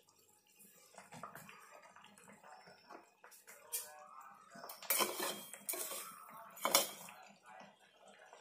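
Metal kitchen pots and utensils clinking and clattering: scattered light clinks, with the sharpest strikes about five seconds in and again just before seven seconds in.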